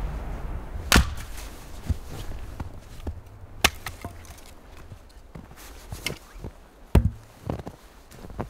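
Axe chopping firewood on a chopping block: three sharp, loud chops, about a second in, about three and a half seconds in and at seven seconds, with fainter knocks of wood between.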